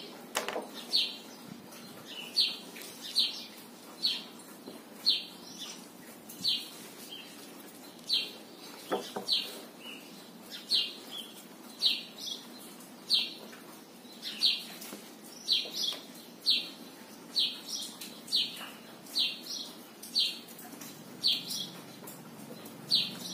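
A bird chirping over and over, short high chirps about once a second, with a soft knock about nine seconds in.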